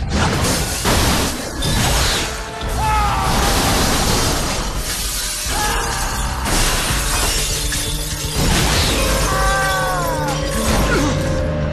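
Window glass smashing and shattering again and again through the whole stretch, over dramatic film music.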